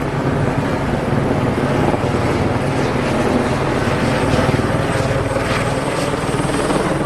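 Helicopter running close by, a loud steady drone with rapid rotor chop.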